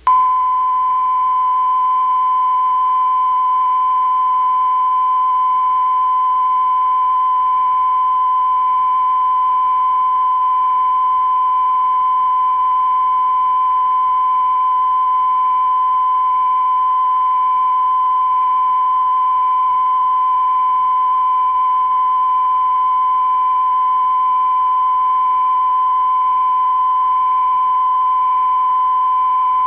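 Broadcast line-up tone: the standard 1 kHz reference tone that accompanies colour bars, one steady, unbroken pitch at a constant level.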